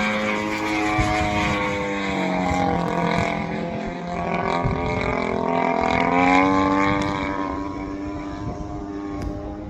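Radio-controlled SBACH 342 aerobatic model airplane's motor and propeller running in flight. The note sags, then climbs and peaks about six seconds in, and fades after about seven seconds as the plane passes and flies away.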